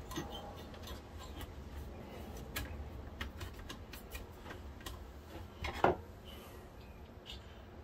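Small metallic clicks and taps as a perforated metal-framed board is lowered into the opened VCR chassis and seated over the video head drum, with one louder knock about six seconds in.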